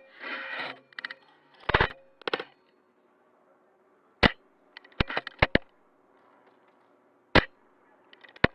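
A string of sharp snaps and clicks from a VSR-10 bolt-action spring airsoft sniper rifle being fired and cycled. A quick cluster comes in the first couple of seconds, then single snaps about a second or more apart.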